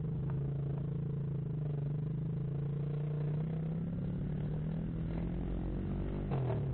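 Motorcycle engine running at a steady speed, its pitch dipping briefly near the end.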